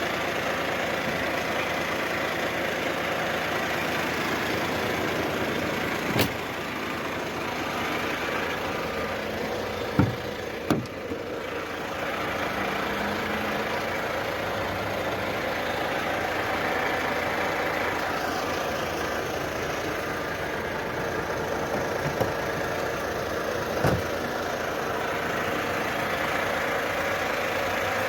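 A Volvo work machine's engine running steadily, with a few short clunks, the sharpest about ten seconds in.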